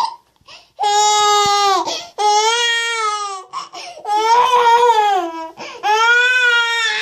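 A baby crying in four long, high-pitched wails with short pauses between, each wail dropping in pitch at its end.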